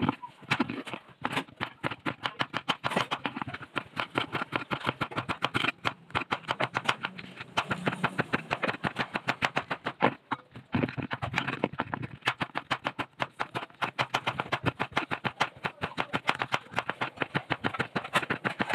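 Chef's knife chopping okra on a wooden cutting board: quick, even knocks of the blade striking the board, several a second, with a brief pause about ten seconds in.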